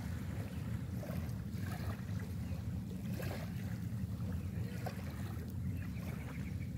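Small waves lapping and splashing at the shoreline over a steady low rumble of wind on the microphone.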